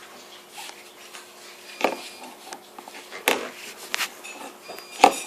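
Slime being worked by hand: soft rubbing and crackle with three sharp clicks or pops, the last near the end the loudest.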